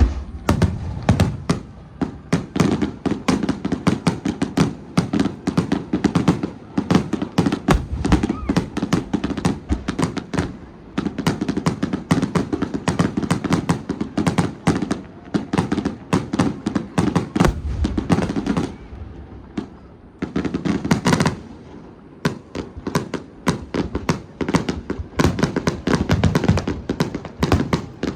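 Fireworks bursting in a rapid, dense barrage of booms and crackles, beginning suddenly and easing briefly about two-thirds of the way through before continuing.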